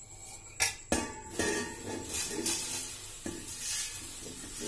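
A steel pan knocks twice against a large steel tin, then dry, crisp poha flakes rustle steadily as they are tipped and pushed by hand into the tin.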